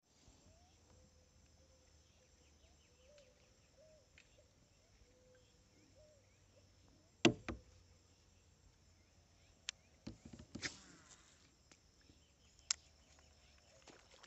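Faint steady chirring of insects, with a few sharp clicks and knocks scattered through the middle, the loudest a double click about seven seconds in.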